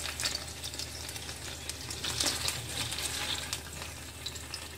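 Oil sizzling and crackling in a nonstick frying pan around two pieces of turmeric-coated rohu fish. Near the end a spatula moves in the pan as a piece is lifted out.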